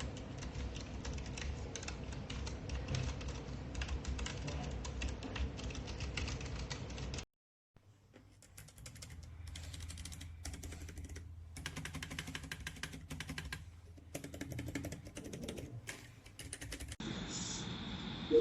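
Keychron low-profile mechanical keyboard being typed on: a fast, dense run of key clicks. The typing breaks off briefly about seven seconds in, then resumes in looser runs over a steady low hum.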